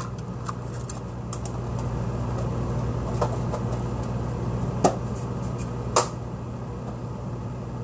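Steady low kitchen hum with a faint hiss, broken by a few sharp knocks and clicks of containers and utensils being handled, the loudest about five and six seconds in.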